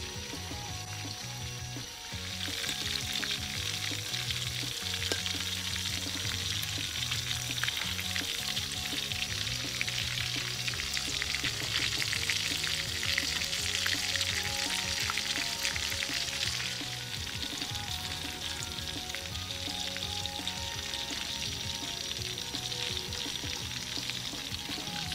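Whole quail deep-frying in hot oil in a large wok: a dense, steady sizzle and crackle that grows louder about two seconds in, under background music.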